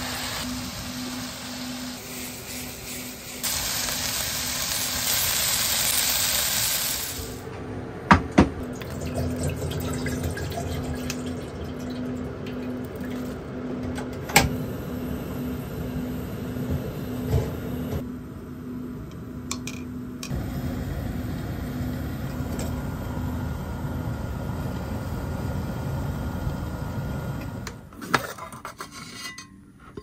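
Camper-kitchen cooking sounds. A stir-fry sizzles in a frying pan, then a few seconds of rushing water, then two sharp clicks. After that a gas stove burner hisses steadily under a stainless kettle, with an occasional knock of metal.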